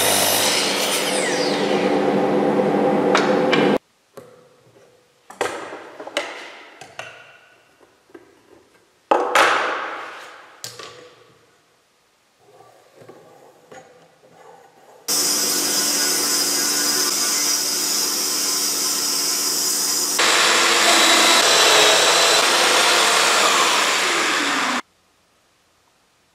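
A Makita sliding mitre saw runs and cuts a wooden block, then stops sharply about four seconds in. Scattered knocks of wood being handled follow. From about halfway in, another power tool runs steadily for about ten seconds; its sound changes partway through, and it cuts off near the end.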